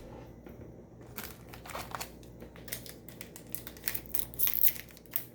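A foil booster-pack wrapper crinkling as it is handled and opened: a run of short, irregular crackles that starts about a second in and is loudest near the end.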